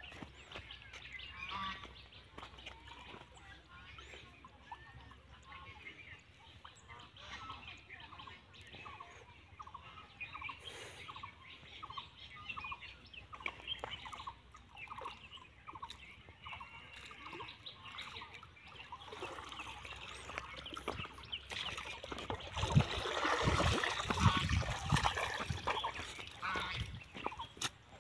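Fowl calling over and over in short calls, growing louder and denser for a few seconds about 22 seconds in.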